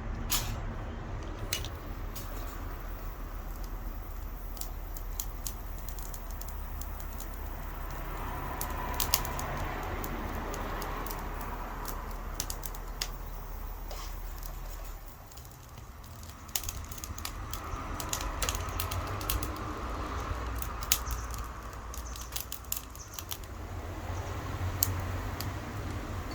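Small wood fire crackling in a titanium camp stove, with irregular sharp pops and snaps scattered throughout.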